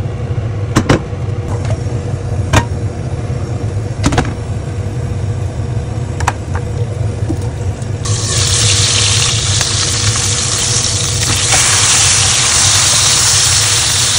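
A steady low hum with a few sharp clicks in the first half, then about eight seconds in a loud, steady sizzle of fish frying in hot oil in a lidded frying pan.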